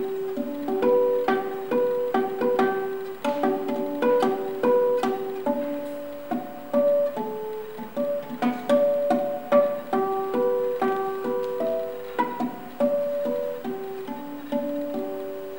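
Venezuelan cuatro, a small four-string nylon-strung guitar, played solo: a melody of short, clear plucked notes, each starting with a sharp percussive attack on the strings.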